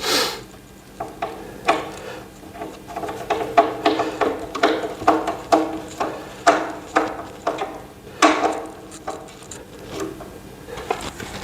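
Screws being turned by hand into the TV stand's frame with a hand tool: a run of short, irregular scraping clicks at about two a second, easing off near the end.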